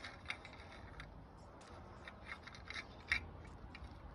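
Large steel hex spindle nut on a truck's rear hub being worked by a gloved hand: scattered light metallic clicks and scrapes, the loudest about three seconds in.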